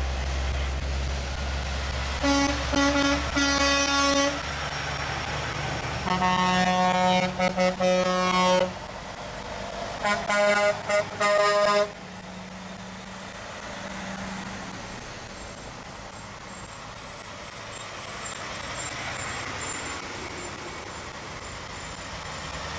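Big trucks passing in a convoy, sounding their air horns: a run of short blasts about two seconds in, a longer blast with a few breaks around six to nine seconds, then more short toots around ten to twelve seconds. Between and after the horns, diesel engines run and tyres hiss on the wet road.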